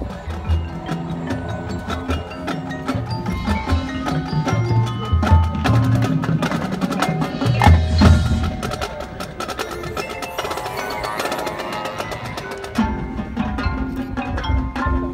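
A band playing, with struck mallet percussion prominent over held low notes; it swells louder about halfway through.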